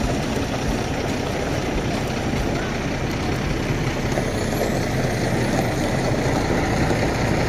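Large truck engine running steadily: a dense, even rumble.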